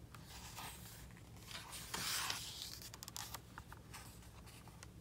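A picture book's page being turned by hand: paper rustling and sliding, loudest about two seconds in, followed by a few small clicks and taps.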